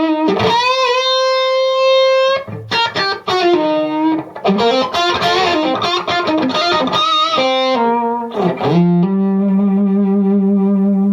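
Electric guitar played through a KONG 6810HW amp head into a Marshall 4x12 cabinet with Celestion Vintage 30 speakers. It plays a note bent up and held with vibrato, then a run of quick notes, then a long sustained note near the end.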